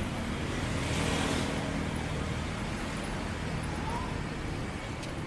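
Road traffic: motor vehicles running past on the street, one passing closest and loudest about a second in, then fading.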